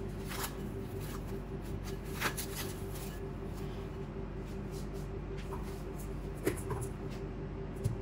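Plastic cling wrap being peeled off a bowl of bread dough, crinkling in a few short rustles.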